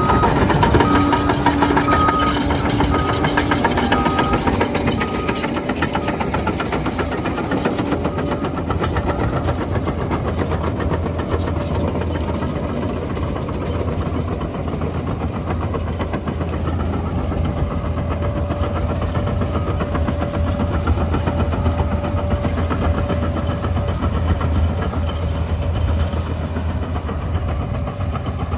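Liebherr 746 crawler dozer's diesel engine running steadily with a deep rumble, its reversing alarm beeping for the first five seconds or so.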